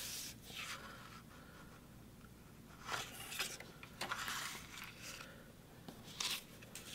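Sheets of patterned scrapbook paper being picked up and slid across cardstock: faint, brief paper rustles and scrapes, a handful of them, the clearest about three and four seconds in and again near the end.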